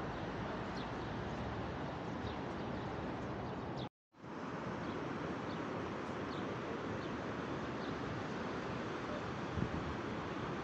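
Steady outdoor background noise with faint, short, high chirps scattered through it. The sound drops out completely for a moment about four seconds in.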